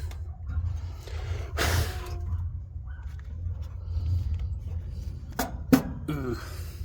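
Handling of a dryer-vent cleaning rod: a brief rustling scrape about two seconds in, then two sharp knocks near the end with a short squeak after them, over a steady low rumble.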